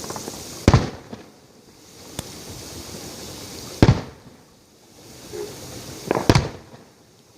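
Fireworks display: three aerial shell bursts booming about three seconds apart, the last with a short spatter of crackles around it.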